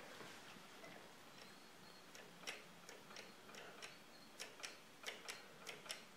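Faint, irregular clicking from a longarm sewing machine's needle and hook mechanism as it is turned slowly by hand to check the hook timing. The clicks are sparse at first and come quicker, in pairs, in the second half.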